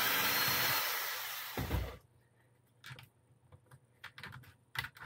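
Cordless drill running for about two seconds as it backs out the screw holding the rear upper suspension links, ending with a low thump. Light clicks of small plastic parts being handled follow.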